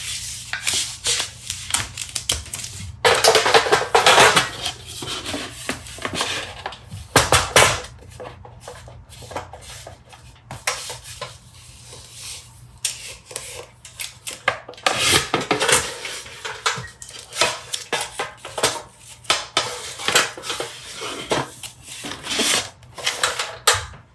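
Irregular clinking and clattering of small hard objects being handled, with knocks and rustling, busiest in a few short flurries.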